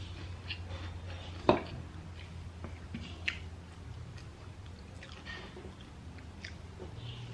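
Close-miked chewing of chatpate, a spiced puffed-rice snack: wet, squishy mouth sounds and small scattered clicks, with one sharp click about a second and a half in.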